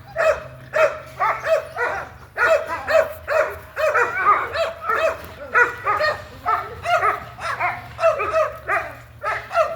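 American Pit Bull Terriers playing, giving a fast, steady run of short barks and yips, a couple every second.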